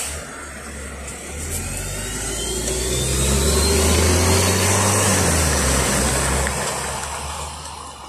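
LiAZ 5292.67 city bus with a YaMZ-53624 compressed-natural-gas engine pulling away from a stop and accelerating past. The engine sound swells as the rear of the bus goes by about four seconds in, then fades as it drives off, with a rising whine as it gets under way. A short sharp click right at the start.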